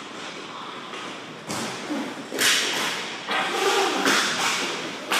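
Inline hockey play around the net: sticks and a puck clacking, with skate wheels scraping on the plastic sport-court floor. The sharp clacks start about a second and a half in and come in a quick run of about five, echoing in the rink.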